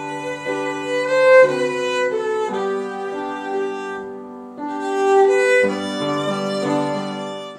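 Background music of bowed strings with a violin lead, playing slow, held notes over sustained lower notes, easing off briefly around four seconds in and swelling again.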